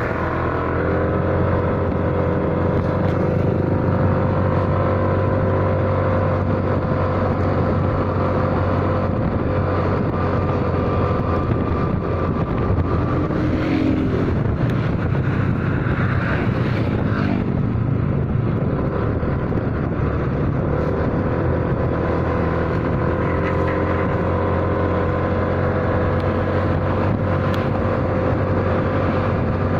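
Motorcycle engine running at cruising speed on the road, with wind and tyre rumble, its note wavering and shifting for a few seconds around the middle before holding steady again.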